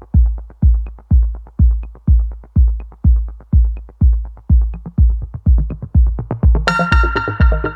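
Electronic background music with a steady, heavy kick drum about twice a second. A bright synth layer comes in near the end.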